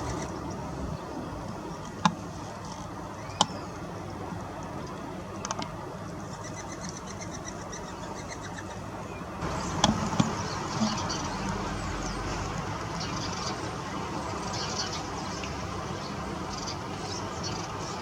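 Small garden birds chirping and chattering over a steady background hiss, with the chirping becoming busier about nine and a half seconds in. A few sharp clicks come early on.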